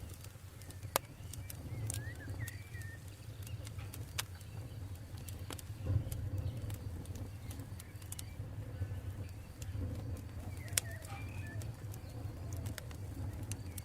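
Campfire burning, with scattered sharp crackles and pops over a low, fluttering rumble of the flames. Birds chirp briefly a couple of times in the background.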